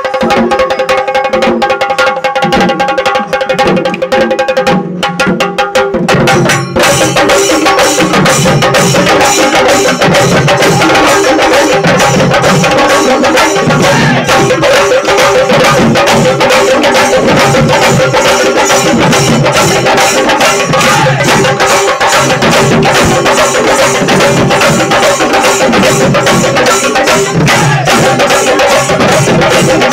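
A large ensemble of chenda, the Kerala cylindrical drums, beaten with curved sticks in a fast, dense rhythm, with a heavy low beat about once a second. The drumming becomes fuller about seven seconds in.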